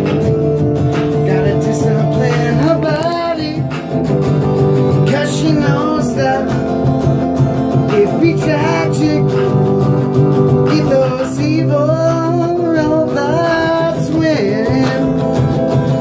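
Live band music: electric guitar and a small tabletop synthesizer, with steady held low notes and a wavering melodic line that bends in pitch and comes and goes.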